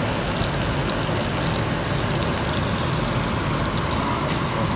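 Ribeye steak sizzling in foaming butter in a cast-iron pan, with fine crackles, over a steady low rumble.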